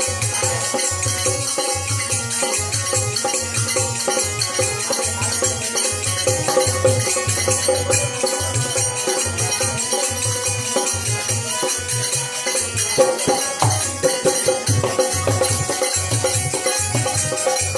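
Devotional bhajan accompaniment: a harmonium holding chords, a hand drum beating a steady rhythm of about two strokes a second, and a continuous high jingle from tambourine-like percussion.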